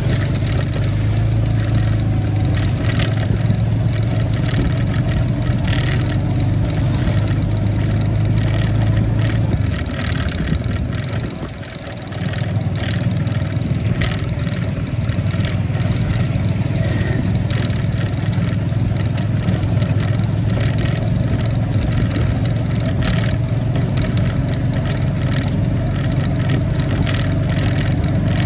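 A vehicle's engine running steadily, easing off for about two seconds about ten seconds in and then picking back up, with scattered light clicks over it.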